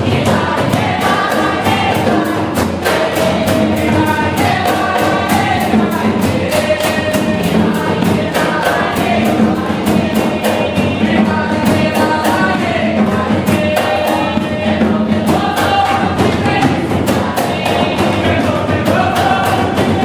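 Jongo music: a group of voices singing together over jongo hand drums and a drum kit, with a steady, fast percussion beat.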